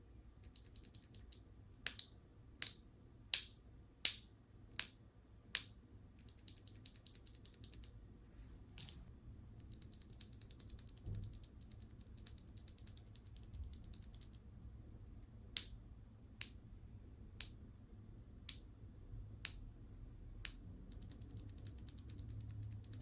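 Keys on a custom TKL mechanical keyboard being pressed. First come six single keystrokes about two-thirds of a second apart, then a run of fast typing, then more single keystrokes about a second apart.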